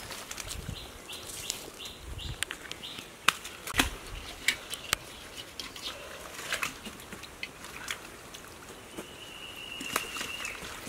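Hands rummaging through wet mud and water hyacinth: irregular squelches, small wet slaps and the rustle of leaves and stems.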